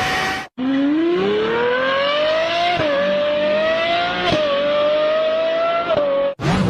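High-revving multi-cylinder racing car engine accelerating hard, its pitch climbing and dropping suddenly three times as it shifts up through the gears.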